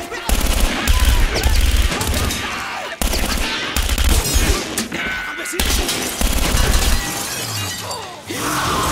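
Repeated gunshots mixed with glass shattering, a dense run of sharp cracks and heavy thumps.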